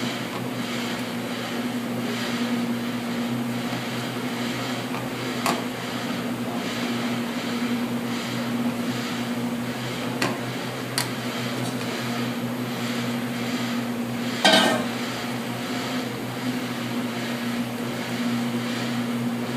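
Steady machine hum with a low tone, under the soft scraping of a silicone spatula stirring thick béchamel sauce in an aluminium pan. A few light taps come through, and there is a brief louder knock about three-quarters of the way through.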